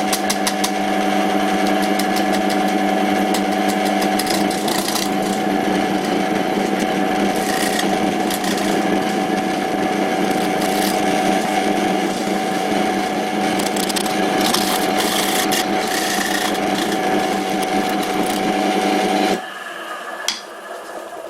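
Old Karger lathe running at its slowest speed with a steady motor hum, while a homemade bowl gouge takes light cuts on a spinning piece of oak, a rough scraping of steel on wood that comes and goes. Near the end the lathe is switched off and the hum stops suddenly.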